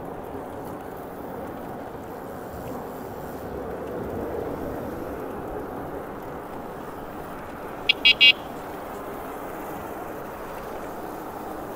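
Steady wind and road noise from riding an e-bike, with three short, high-pitched electronic horn beeps in quick succession about eight seconds in.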